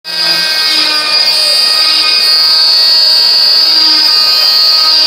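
Electric oscillating cast saw running and cutting through a fiberglass arm cast, a loud, steady, high-pitched whine.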